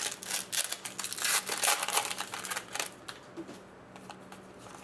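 Trading card pack being opened and its cards handled: a dense run of crinkling wrapper and rapid card clicks for about three seconds, then quieter handling.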